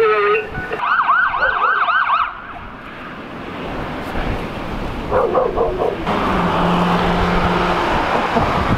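Emergency vehicle siren in a fast yelp, sweeping up and down several times for about a second and a half, followed by steady road and engine noise from a moving vehicle.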